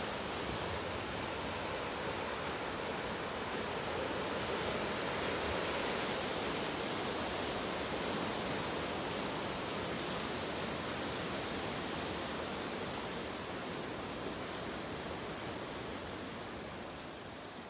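Sea surf: a steady rushing wash of waves breaking over rocks, fading out near the end.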